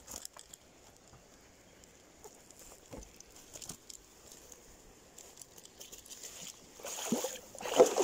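Sparse light taps and rustles, followed by louder rustling about a second before the end.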